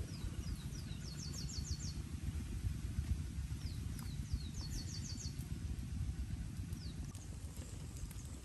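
Birds calling: several short falling chirps and two quick runs of about five rapid high notes, about one second and four and a half seconds in. Under them runs a steady low rumble with crackle from the open wood fire roasting the fish.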